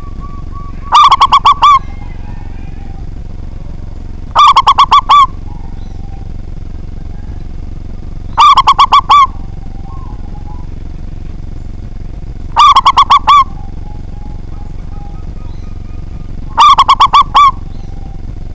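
Zebra dove (perkutut) cooing: five loud calls about four seconds apart, each a quick run of five or six clipped notes. A steady low hum runs underneath.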